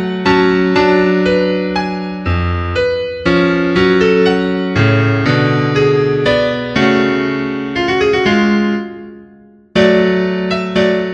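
Background music: a gentle piano melody, a new note or chord about twice a second. It fades out about nine seconds in, and a fresh chord starts near the end.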